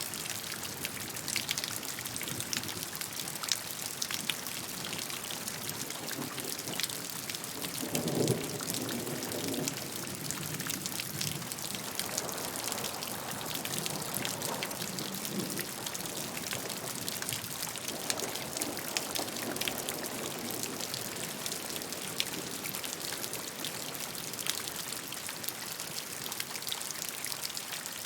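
Steady rainfall, a dense even hiss dotted with countless individual drops ticking on a surface. Low rumbles swell up and fade several times along the way, the strongest about eight seconds in.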